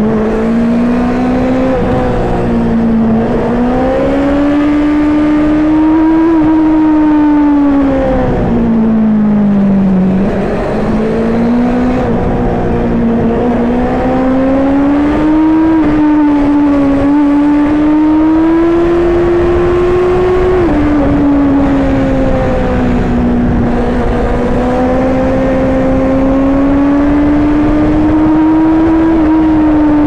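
Honda CB650R's inline-four engine pulling under hard throttle, its pitch rising and falling with the revs as the bike accelerates and rolls off. There are a few sudden steps down in pitch, the clearest about two-thirds of the way through: quickshifter upshifts.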